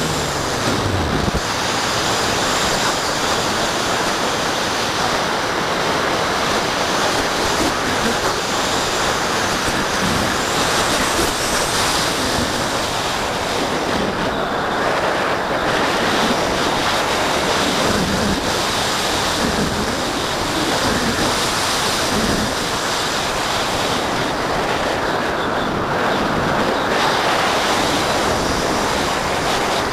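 Steady rush of airflow over the microphone of a camera mounted on the wing of a gliding electric RC sailplane. A falling motor whine dies away about a second in, leaving only the wind noise.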